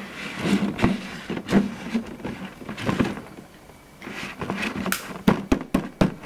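Handling noise from a clear plastic container being moved and touched by hand: a run of knocks, taps and rustling scrapes, with a quick series of sharp clicks in the second half.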